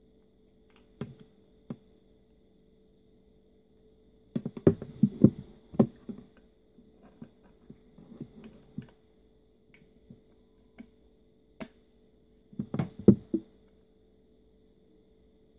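Scattered knocks, taps and clicks of objects being handled and set down, busiest about four to six seconds in and again near the end, over a faint steady hum.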